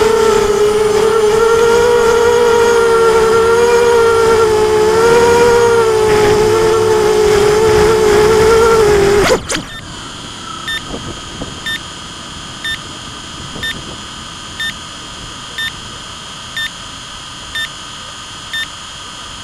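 ImmersionRC Vortex quadcopter's motors and propellers whining steadily, the pitch wavering slightly, then cutting off suddenly about nine seconds in. After that, a quieter steady high electronic tone with a short beep about once a second.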